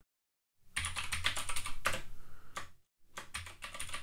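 Computer keyboard typing: a quick run of keystrokes starting just under a second in, a short pause a little before three seconds, then typing again, as a username and then a password are entered at a login prompt.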